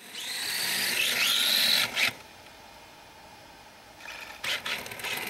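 13.5-turn brushless electric motor of a 1/10-scale RC drift car whining, its pitch rising and falling with the throttle, with the hard ABS tyres sliding on stone paving. The sound drops off sharply about two seconds in, and a few short throttle spurts come back after about four seconds.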